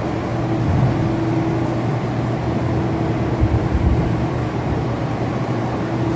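Steady rumble and hum of a stationary train's running machinery, with one mid-pitched tone held throughout.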